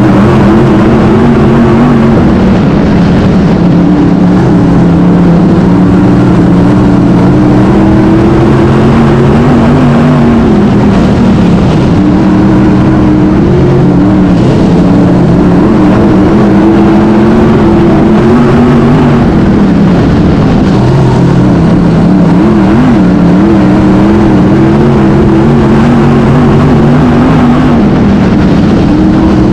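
Race car engine running loud and hard, its pitch rising and falling again and again every few seconds.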